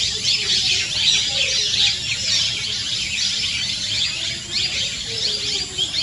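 A dense, unbroken chorus of high, fast, falling chirps from many small birds in the surrounding trees.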